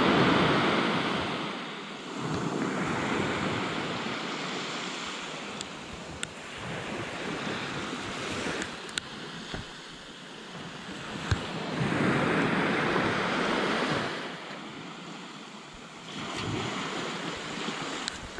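Small surf waves breaking and washing up a sandy beach, the sound swelling and fading every few seconds.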